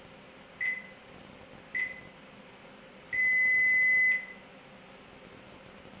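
Keypad beeps from a car air-conditioning refrigerant service machine as a value is keyed in: two short beeps about a second apart, then one long beep of about a second, all on the same high tone.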